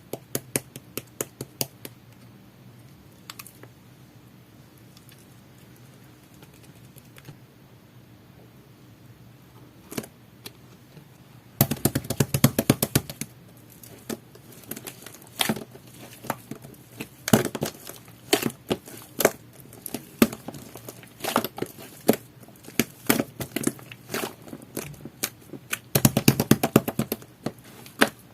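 Sticky grape whipped-cream slime being pressed and stretched by hand, giving sharp popping and crackling clicks as air pockets burst. The clicks are sparse at first, then come in dense runs about twelve seconds in and again near the end.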